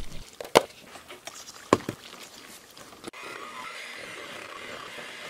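Water poured into investment plaster powder in a stainless steel bowl, with two sharp knocks. About three seconds in, an electric hand mixer starts and runs steadily with a light whine, mixing the plaster slurry.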